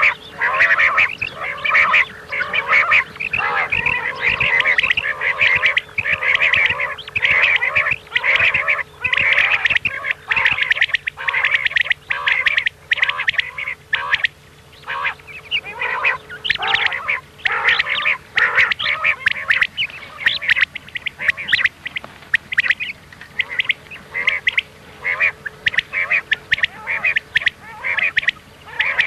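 Recorded common quail calls played as a hunting lure: a dense, continuous run of short, overlapping calls from several birds. A faint steady hum lies under the first half.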